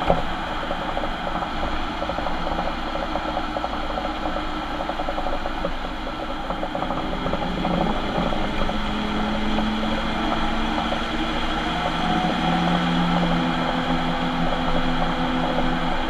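Ford Transit van driving, with steady road and drivetrain noise and a whine that fades in and out and changes pitch a few times. It is the sound of a bad rear differential.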